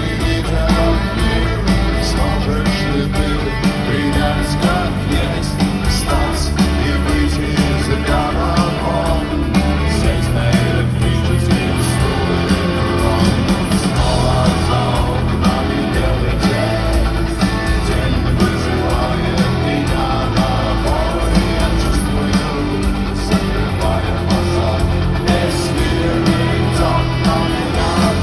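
Rock music with electric guitar, bass and drums, and singing without words, playing steadily.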